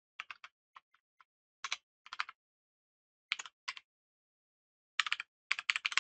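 Typing on a computer keyboard: short runs of key clicks with pauses between them, the fastest run near the end.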